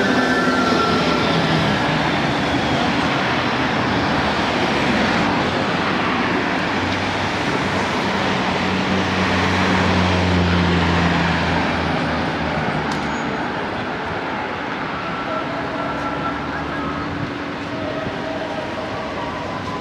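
City street traffic noise: a steady wash of passing cars, with a louder low engine drone from about seven to twelve seconds in.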